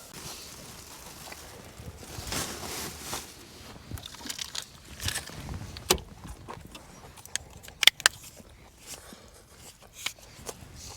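Someone eating and handling food and utensils: scattered small clicks and taps with bits of rustling, a few sharper clicks about eight seconds in.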